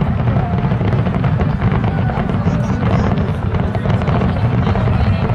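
A dense barrage of fireworks bursts: the booms follow so closely that they run together into a continuous, loud rumble, with sharp cracks on top.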